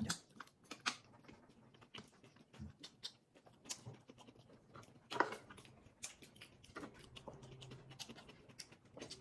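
Faint eating sounds: chewing on grilled food, with scattered small mouth clicks and crackles.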